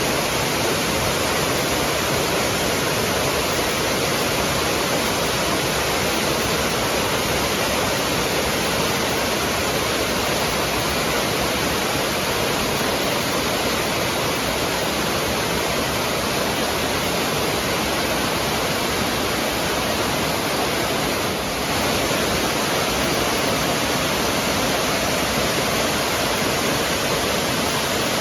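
Steady, loud rushing of a waterfall close by, a hillside burn falling into a pool.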